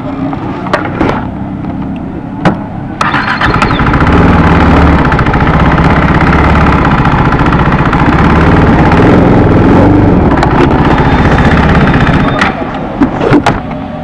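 A KTM RC 390's single-cylinder engine is started about three seconds in and runs steadily while the motorcycle is ridden slowly a short way, then stops about twelve seconds in. A few sharp clicks and knocks come before and after it.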